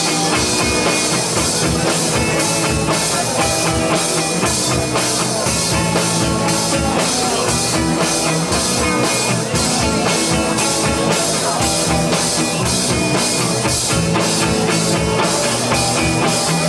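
Live rock band playing an instrumental passage without vocals: electric guitar, bass and drum kit with a steady beat.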